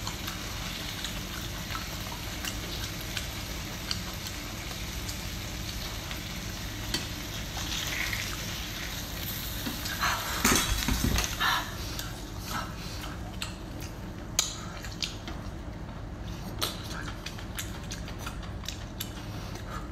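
Wet eating sounds of braised octopus in thick sauce being handled and chewed, loudest about halfway through, followed by scattered light clicks as sea-snail shells are picked up and knocked against the platter.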